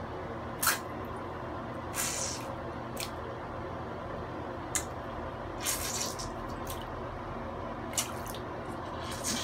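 Small splashes and drips of bath water as a toddler plays with a rubber squirt toy in a bubble bath: about seven short, sharp splashes scattered through, over a steady low hum.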